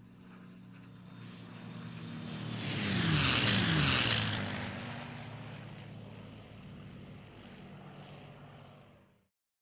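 Propeller airplane flying past. The engine drone builds to a peak about three to four seconds in, drops in pitch as it passes, then fades away.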